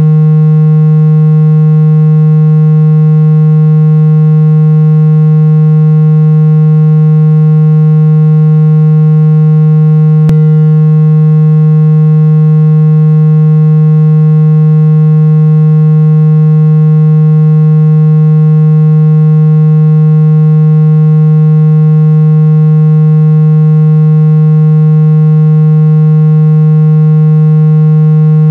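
A loud, steady low-pitched electronic tone with a ladder of overtones, held without change: a speaker-cleaning tone played at full volume to shake trapped water out of a phone speaker. A brief click sounds once about ten seconds in.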